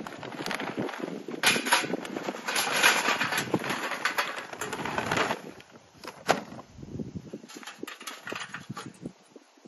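Charcoal briquettes poured from a paper bag into a metal chimney starter: a dense, loud rattling clatter lasting about four seconds. Before it the bag rustles as it is opened, and afterwards come a few sharp knocks as the chimney is handled.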